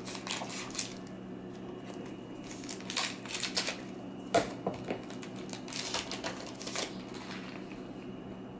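Scissors snipping open a foil trading-card pack, with the wrapper crinkling and the cards handled in scattered short clicks and rustles. One sharper click about four and a half seconds in, over a steady low hum.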